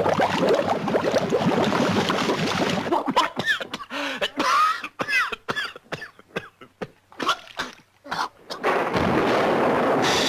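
Cartoon sound effects: a dense crackling clatter for the first few seconds, then a run of separate sharp pops and short squeaky chirps that glide up and down in pitch, giving way near the end to a steady rushing noise.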